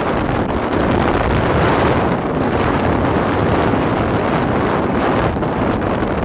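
Strong wind buffeting the microphone in a steady roar, over the wash of sea waves breaking against rocks on the shore.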